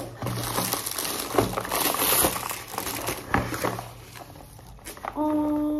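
Gift wrapping crinkling and rustling with sharp crackles as a wrapped present is unwrapped by hand. About five seconds in, a steady held tone begins.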